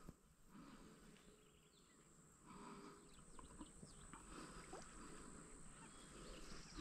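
Near silence: faint outdoor ambience with a few faint ticks and short high chirps.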